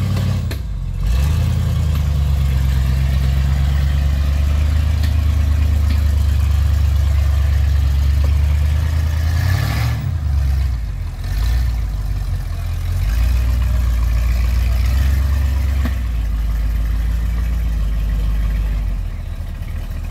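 Big-block V8 of a mud-covered off-road buggy running at low revs under load as it crawls over deep mud ruts, a steady rumble. The revs drop briefly about half a second in, again around ten seconds in, and near the end.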